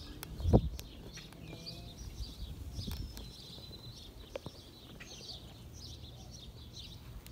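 Small birds chirping repeatedly over a faint low hum, with one heavy thump about half a second in.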